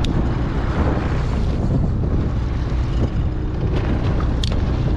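Fishing boat's engine running steadily under wind buffeting the microphone, with a short click about four and a half seconds in.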